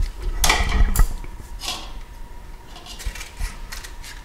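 Plastic milk sachet rustling and crinkling as it is handled, in a few short bursts with a sharper click about a second in.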